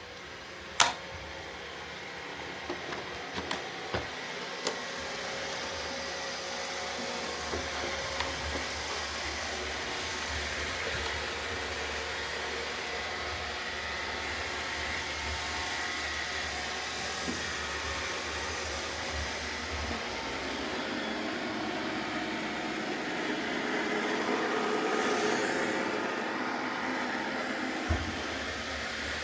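Roomba robot vacuums running steadily, their motors and brushes whirring, with a few sharp clicks or knocks. The whirr grows louder for a few seconds near the end.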